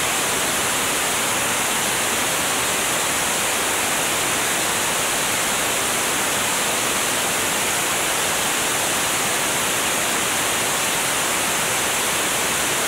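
Steady rush of wind over a camera mounted under the wing of a single-engine light aircraft in cruising flight: an even hiss with no engine note standing out.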